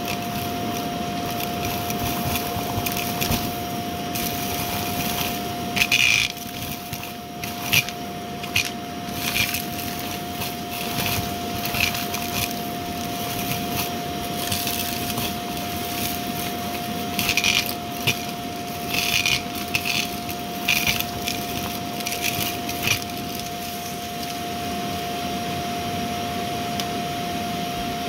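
Shark Navigator upright vacuum running with a steady motor whine, crunching and crackling as it picks up crunchy debris, with a run of sharp, loud crunches through the middle stretch.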